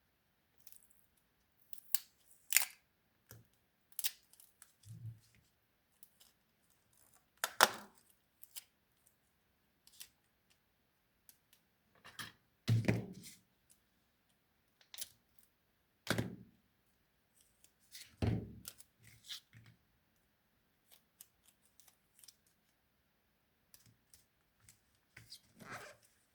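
Hand crafting noises: irregular snips and clicks of scissors cutting craft material, with a few longer rustles of the material being handled.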